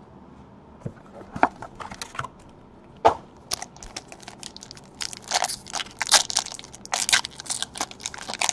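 Hands handling and tearing open a foil trading-card pack wrapper: a few light clicks and crackles at first, then dense crinkling of the foil from about five seconds in.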